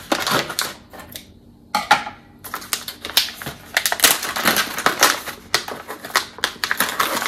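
A crinkly tool kit pouch from a diamond painting kit being handled and opened by hand: a dense run of irregular crackles, with a brief pause about a second in.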